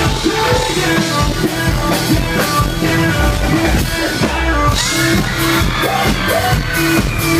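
Live band playing a loud dance-rock song, with drum kit and electric guitars, while singers perform on microphones over the PA.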